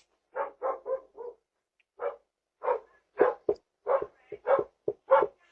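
A dog barking: a run of about a dozen short barks in uneven groups.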